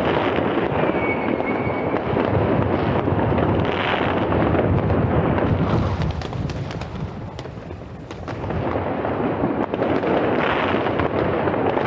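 Dense street fireworks: firecrackers (Böller) and rockets going off continuously as a steady rumble of bangs with sharp cracks. A short whistle is heard about a second in, and the barrage eases briefly about two-thirds of the way through before building again.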